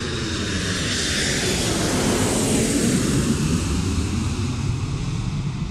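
Airplane engine sound effect: a steady, loud engine noise with a low rumble, cutting in suddenly.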